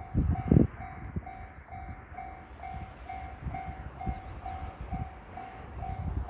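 Japanese railway level-crossing warning bell ringing: an electronic ding of one pitch repeating about twice a second. Irregular low thuds rumble beneath it, loudest near the start.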